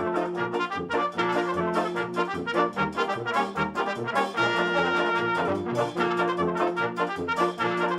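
Upbeat brass band music with trumpets and trombones over a steady beat.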